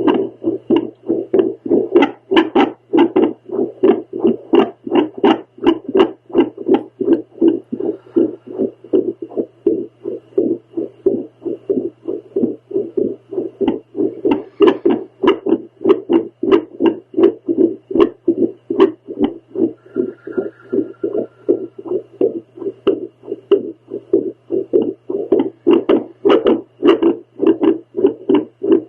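A woman's heartbeat picked up by a home Doppler monitor: loud rhythmic whooshing pulses, about two to three a second, over a steady faint hum from the device.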